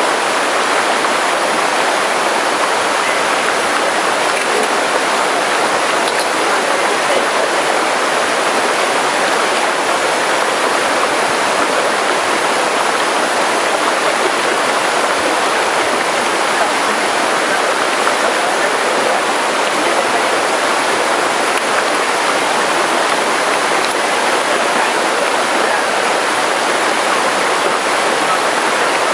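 Steady rush of running stream water, an even noise that does not change.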